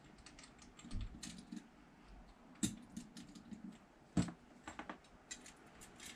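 Scattered small clicks and knocks of metal and plastic parts as a guide attachment is fitted to an unplugged Makita compact trimmer router. Two sharper knocks come about a third and two thirds of the way through.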